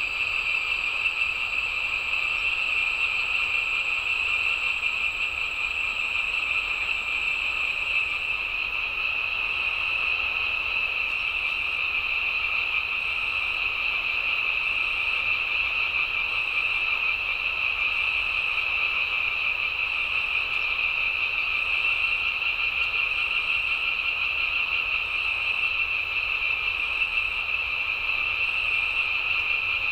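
Steady, dense night chorus of frogs and insects calling together without a break. A thin high whine stops about a quarter of the way through, and after that a faint high chirp repeats about once a second.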